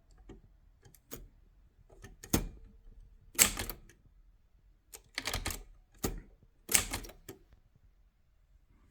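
Facit TP1 manual typewriter being typed on: irregular type-bar clacks, some single and some in quick runs of several strikes.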